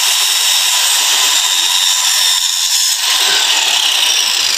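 A power tool from nearby construction work runs steadily, a loud high-pitched whine with little low end.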